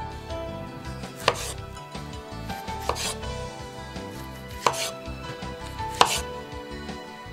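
Chef's knife slicing small strawberries in half on a wooden cutting board: four sharp knocks as the blade goes through and hits the board, spaced a second or more apart.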